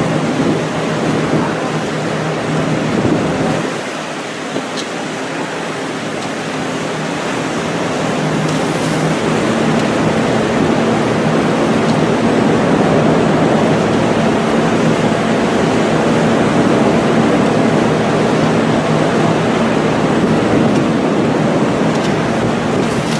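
Strong wind buffeting the microphone over the wash of rough sea against the hulls, a steady noisy rush with a faint low hum underneath. It dips briefly about four seconds in, then builds again.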